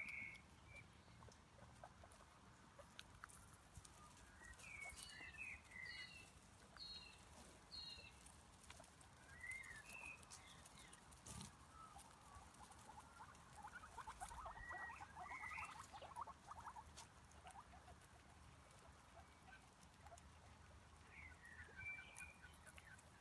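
Faint, scattered short high squeaks and chirps of small animals, with a spell of light pattering about two thirds of the way in.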